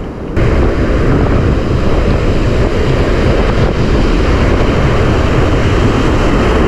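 Strong wind buffeting the microphone over surf breaking and whitewater washing around the angler's legs. It steps up suddenly a moment in, then stays steady and loud.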